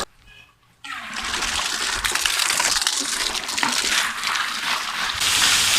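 Water splashing and running as plastic chick drinkers are rinsed out by hand, a steady wet splashing that starts just under a second in.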